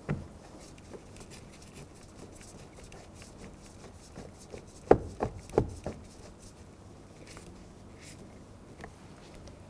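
Phillips screws being driven by hand into a plastic car door trim panel: faint clicking and rubbing, with a cluster of three or four sharp knocks about halfway through.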